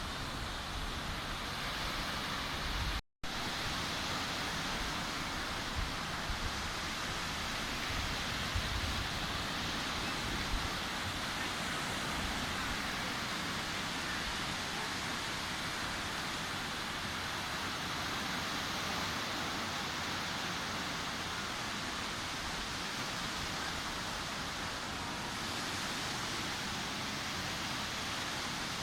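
Sea surf washing steadily on a beach: an even, rushing hiss of breaking waves. The sound cuts out for an instant about three seconds in.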